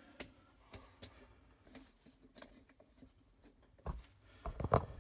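Light clicks and taps of parts being handled and fitted, with a few louder knocks about four seconds in and again near the end.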